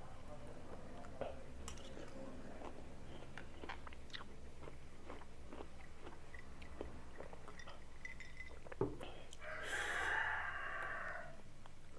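Close-up crunchy chewing of raw mango and jicama rujak, with many small crisp bites. Just before the end comes a sharp knock, followed by a louder rushing sound of about two seconds.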